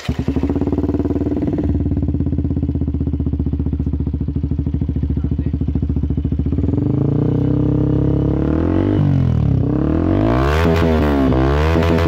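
Benelli TNT 150's single-cylinder engine breathing through an Akrapovic full-system exhaust: it catches right at the start and idles with a fast, even beat. From about seven seconds in it is revved up, then blipped several times, the exhaust note rising and falling with each blip.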